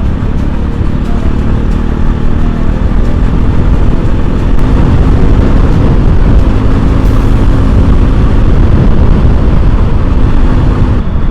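Motorcycle, a Bajaj Pulsar NS200 single-cylinder, running on the move in traffic, with heavy wind rush on the microphone over the steady engine note. The sound changes abruptly near the end.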